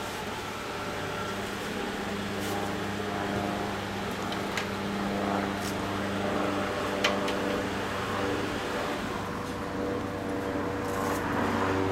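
A nearby engine idling with a steady hum that shifts slightly in pitch, with a few short sharp clicks.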